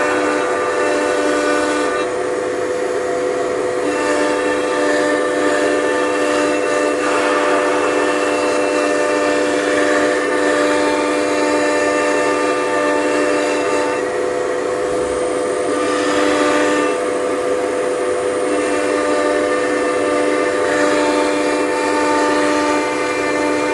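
Blue Elephant 1530 ATC CNC router running a program automatically: a steady machine whine made of several held tones, with parts of it changing every few seconds.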